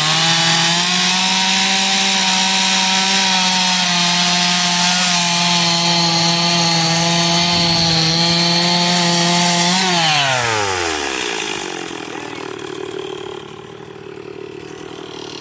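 Gas chainsaw at full throttle, cutting into a wood block for about ten seconds. Then the throttle is released, the revs fall away, and it settles to idle.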